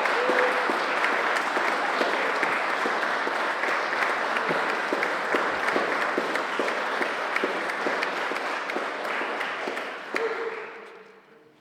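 Audience applauding, dense steady clapping that dies away over the last second or so.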